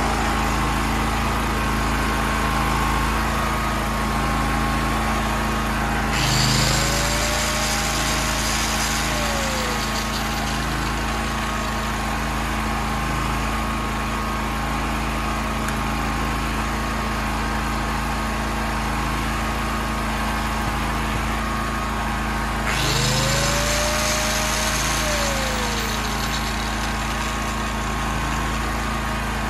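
Small carburetted petrol generator engine running steadily. About six seconds in, and again about 23 seconds in, an angle grinder spins up with a rising whine, runs for a few seconds and winds down, a test of the generator under load.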